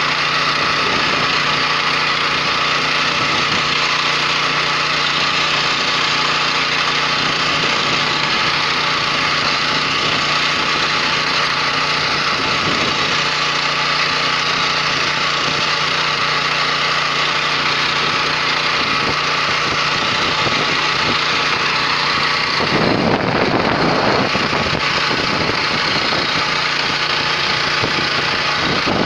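WEIMA 1000N walk-behind tractor engine running steadily, with a brief louder, noisier stretch near the end.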